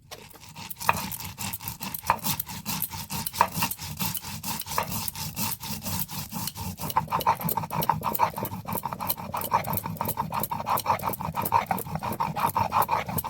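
Cumin and mustard seeds being ground wet into a spice paste on a stone grinding slab (shil-nora), the stone rubbed back and forth in quick rasping strokes several times a second. The strokes get faster and a little louder about halfway through.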